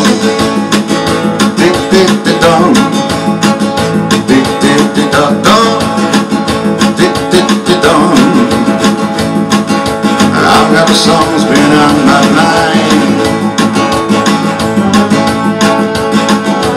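Acoustic-electric guitar strummed in a steady, brisk rhythm, an instrumental passage without words.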